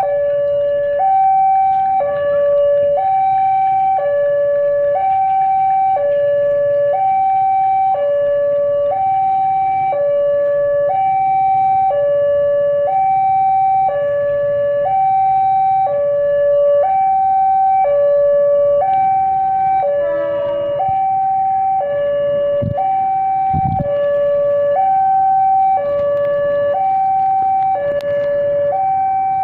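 Railway level-crossing warning alarm sounding a steady electronic hi-lo two-tone, alternating high and low about once a second, the sign of an approaching train. Two brief low thumps come about two-thirds of the way in.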